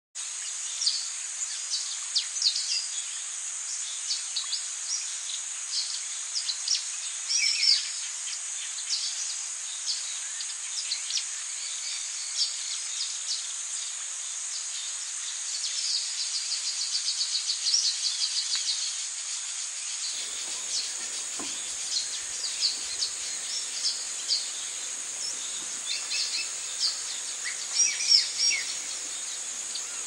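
Many small birds chirping and calling over a steady, high-pitched insect drone like crickets, with a rapid trill about halfway through. About two-thirds of the way in, a faint low rumble joins.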